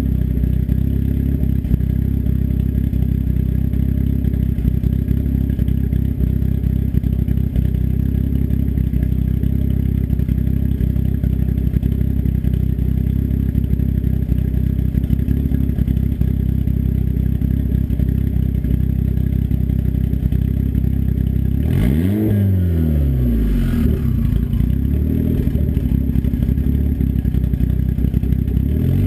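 Turbocharged engine with a BorgWarner S257 turbo and custom cams, idling through a 3-inch open turndown off the downpipe with no muffler. About three-quarters of the way through it is revved once, the pitch rising and falling quickly, then given a smaller blip a couple of seconds later.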